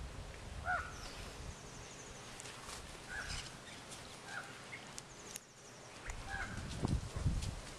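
Outdoor background with small birds giving scattered short chirps and a couple of faint, rapid high trills. A few low rumbles near the end.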